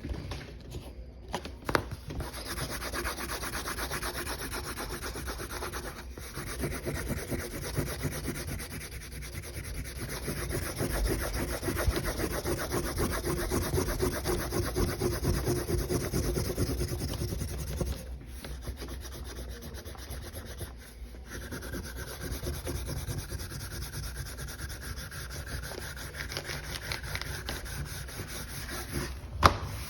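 Colouring strokes rubbing fast back and forth over the sign's surface in long runs, with short pauses, and a couple of sharp taps, the loudest near the end.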